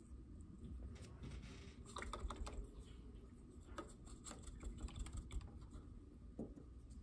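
Quiet, scattered clicks and taps of acrylic paint tubes being handled while fresh dabs of paint are squeezed out onto a paper palette, coming in small clusters.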